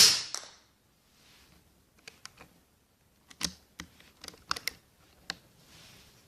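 A Kalibrgun Cricket .22 (5.5 mm) PCP air rifle fires once at the very start, a sharp crack that dies away within half a second. Then a run of about ten light metallic clicks between two and five seconds in, the rifle's action being worked to load the next pellet.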